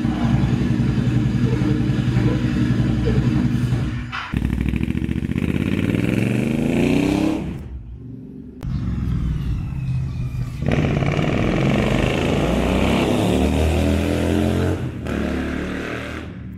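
Royal Enfield Interceptor 650's parallel-twin engine running through aftermarket AEW exhausts with the dB killers removed. It idles steadily for about four seconds. Then the bike rides off twice with the engine pitch rising as it accelerates, fading away near the end.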